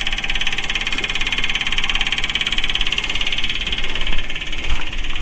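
Electric diesel fuel pump on a Doosan 7/71 compressor's engine running with a steady, high buzz, circulating fuel back through the return line while the engine itself won't start.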